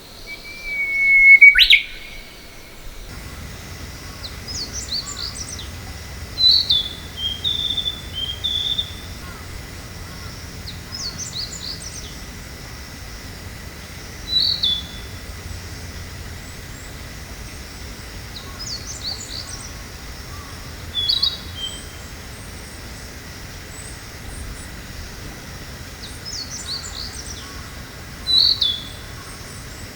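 Male Narcissus flycatcher singing: short phrases every few seconds, each a quick run of high notes followed by a few lower whistled notes. Just before, a Japanese bush warbler gives one loud held whistle that sweeps sharply upward.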